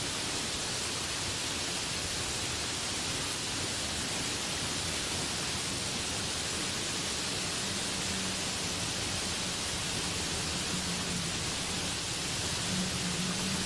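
Heavy rain falling steadily through trees and onto broad banana leaves, an even, unbroken hiss.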